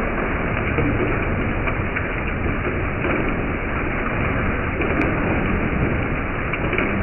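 Hailstorm with rain: a steady, dense hiss of falling hail and rain, speckled with faint ticks of hailstones landing.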